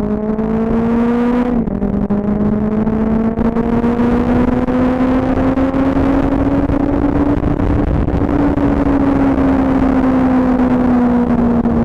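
Benelli motorcycle engine under way: the revs climb, drop sharply at a gear change about a second and a half in, then rise slowly and ease off again near the end, over a steady rushing noise of riding.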